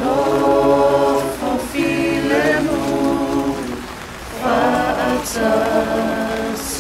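A group of voices singing a hymn unaccompanied in harmony, holding long notes with a short break about a second and a half in and again near four seconds.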